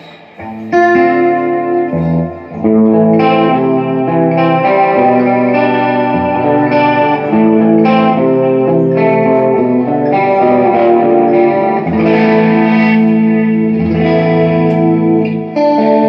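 Electric guitar played through a Line 6 Flextone III XL 212 modelling combo amp: chords and notes ringing out after strums near the start, then steady playing at an even, full volume. It is a sound test of the amp after its pots were cleaned and resoldered to cure volume dropouts.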